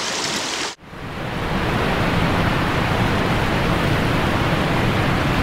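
Steady rush of flowing creek water, broken by a brief dropout just under a second in.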